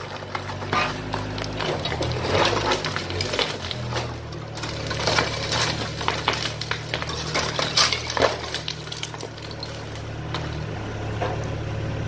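Excavator engine running, its pitch shifting a few times, under almost constant clinking and clattering of broken concrete and brick rubble falling and knocking together.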